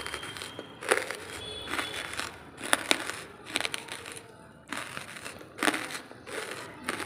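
Dry lump charcoal crunching and cracking: a few sharp cracks, the loudest about a second in, a pair near three seconds and another near six seconds, with softer crumbling between them.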